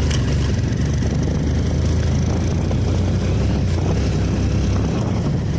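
Motorcycle running steadily while being ridden along a road, a constant low engine sound with road and wind noise over it.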